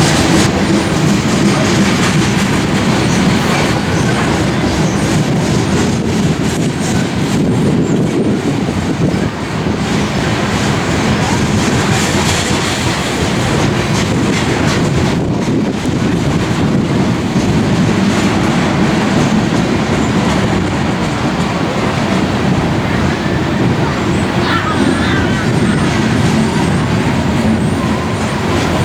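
Freight train of coal cars rolling past: a steady rumble with the wheels clacking over the rails, and a faint wheel squeal near the end.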